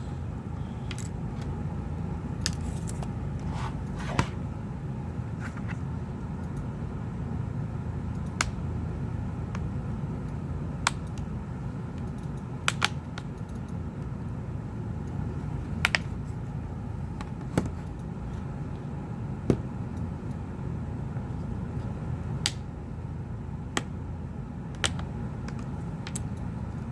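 Sharp plastic clicks, one every one to three seconds, as a guitar pick run along the seam of a Samsung Galaxy Tab 4's back cover pops its retaining clips loose, over a steady low background hum.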